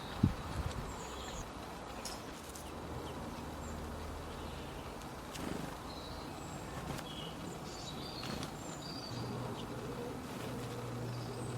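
Birds giving brief, scattered high chirps over a steady outdoor hiss. A sharp thump comes just after the start, and a low hum sets in twice.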